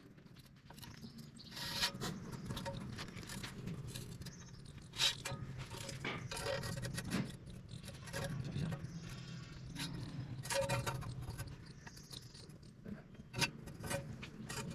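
Metal parts being handled: irregular metallic clinks, taps and scrapes, a few louder knocks about two, five, ten and thirteen seconds in, over a low steady hum.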